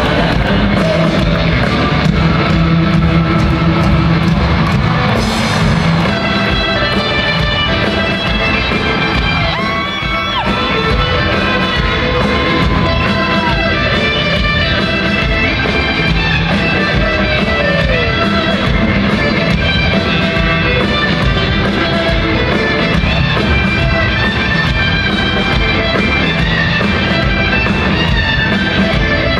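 Rock band playing live in an arena, electric guitar over bass and drums, heard from far back in the stands.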